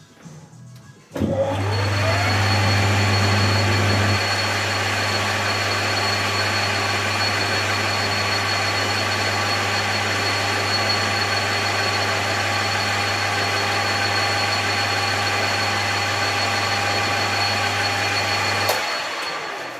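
Metal lathe's electric motor switched on, whining up to speed, then running steadily with a low hum before being switched off near the end.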